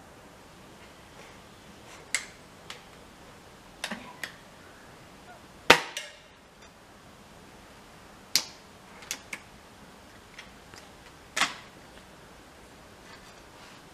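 Air rifle shots at a range: four sharp cracks about three seconds apart, the loudest about six seconds in, with smaller clicks and knocks between them.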